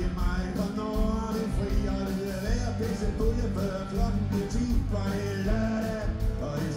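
A live rock and roll band playing: drums, bass and electric guitars in a steady groove, with a singer's voice over the top.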